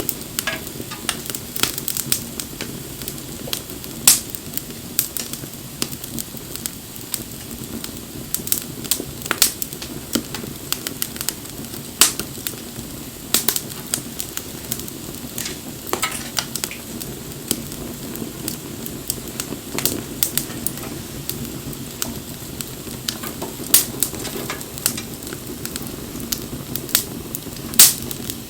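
Wood campfire burning, with a steady low rush and frequent sharp crackles and pops, a few of them much louder.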